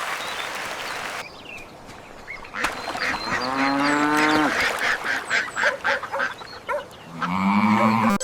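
Cartoon farm-animal calls: two long pitched calls, one falling about three seconds in and one rising near the end, with shorter calls and clicks between them.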